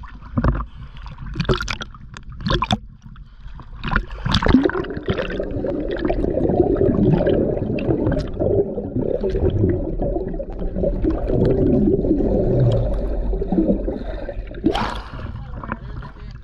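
Sea water slapping and splashing over a camera held at the surface, then the dense, muffled gurgling wash heard with the camera underwater during a snorkel dive, ending in a quick rising splash as it breaks the surface again near the end.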